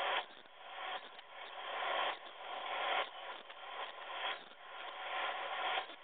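Northern cardinal nestlings begging, a harsh, raspy chorus that swells and cuts off suddenly several times.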